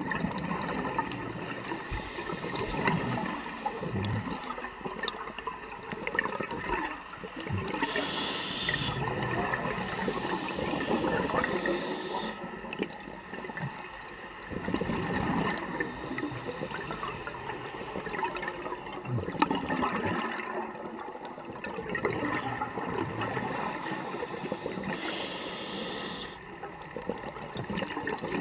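Scuba diver breathing through a regulator underwater: exhaled bubbles gurgling, swelling and fading in slow breath cycles, with stretches of higher hiss between them.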